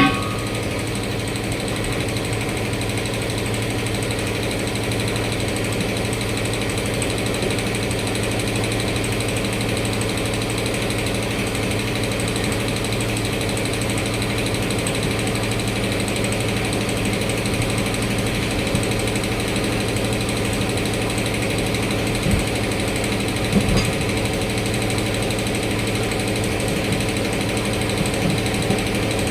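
A machine running steadily with an even, low drone, with a couple of short knocks a little over twenty seconds in.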